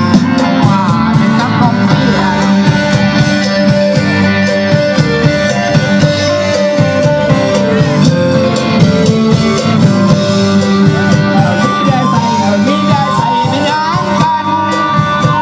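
Live band playing amplified music: a singer over electric guitar with a steady beat.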